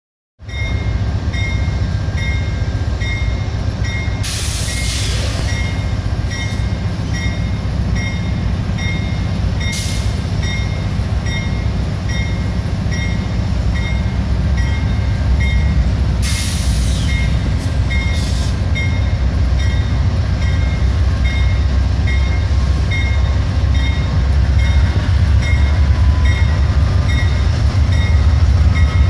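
Two Amtrak P42 Genesis diesel-electric locomotives pulling a passenger train out of a station: a deep, steady diesel rumble that grows louder as they draw closer. The locomotive bell rings evenly, a little more than once a second, and there are a few brief hisses.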